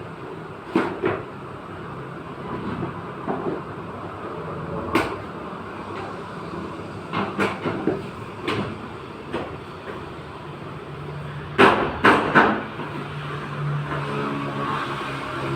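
Irregular knocks and clanks of tools striking metal during car body dent repair, a dozen or so strikes with the loudest few close together near the end, over a steady low hum.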